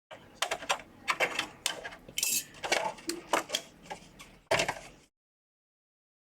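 Irregular clicks, taps and light clatter of plastic and metal parts of a PS5 console being handled and opened up, stopping abruptly about five seconds in.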